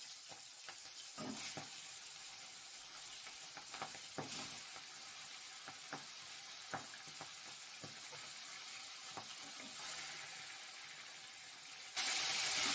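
Pieces of boal catfish head frying in hot mustard oil in a steel wok: a steady sizzle with scattered pops and spatters as more pieces go into the pan. Near the end the sizzle suddenly gets louder.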